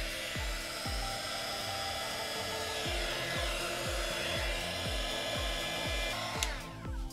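Small heat gun blowing a steady stream of hot air over wet epoxy resin, switching off near the end. Background music with a steady beat plays underneath.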